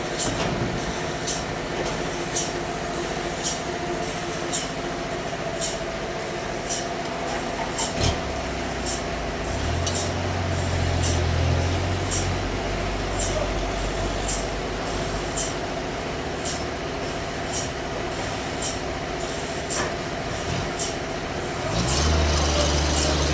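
Sawmill machinery running steadily, with a sharp tick about once a second over a constant hum. A deep engine drone swells for a couple of seconds midway and again near the end.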